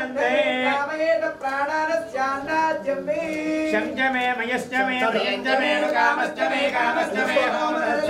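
Unaccompanied singing voices carrying a slow melody with long held notes.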